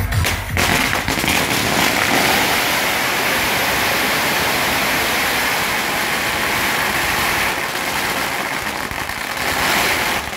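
A long string of firecrackers going off in one continuous rapid crackle, starting about half a second in and stopping abruptly near the end.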